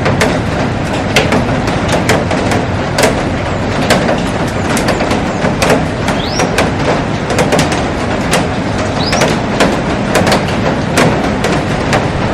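Heavy rain falling on a glass roof and garden: a dense steady hiss dotted with many sharp drop impacts on the glass. A short rising chirp sounds twice, about midway and again a few seconds later.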